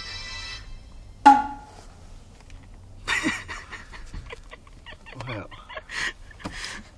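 A mobile phone's alarm melody of ringing tones, stopping about half a second in. About a second in comes one loud, sudden falling sound, and from about three seconds in a run of short irregular sounds.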